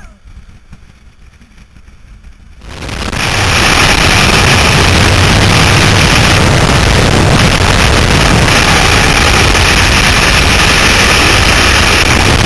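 Freefall wind rushing over a skydiver's helmet-mounted camera microphone, coming in suddenly a little under three seconds in and then holding steady and loud.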